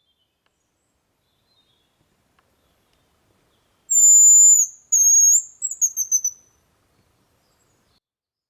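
Hazel grouse singing its thin, very high whistled song once: two long whistles, then a short run of quick notes falling in pitch.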